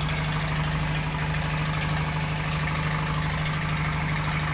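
Passenger speedboat engines idling just after docking: a steady drone with a strong, constant low hum.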